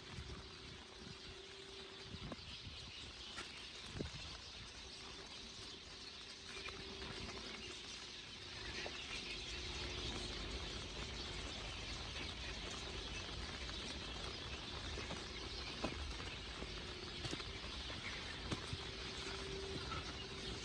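Heavy rain falling, with drops pattering and ticking on an umbrella overhead; the rain grows louder about eight seconds in. A faint steady hum runs underneath.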